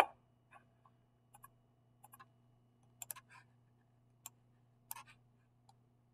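Scattered clicks of a computer mouse and keyboard, about a dozen short taps spread irregularly, over a faint steady low hum.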